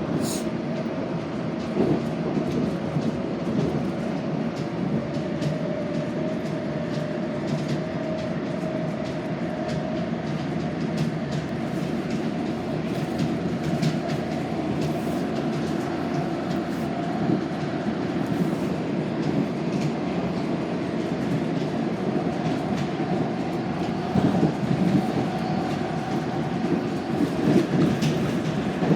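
Metro train running along the track: a steady rumble with scattered clicks of the wheels over rail joints, and a faint tone that rises slightly over the first several seconds.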